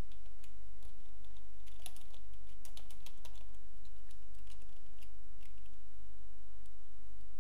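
Computer keyboard keystrokes: typing in short, irregular runs of clicks, busiest in the first few seconds, with a few more a little later.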